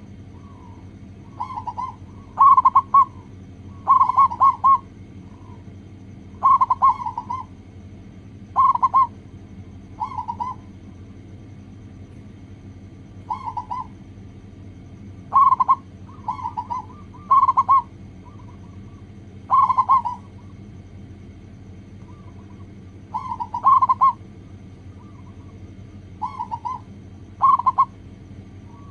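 Zebra doves cooing: short phrases of quick, rolling coos repeated every second or two, over a steady low hum.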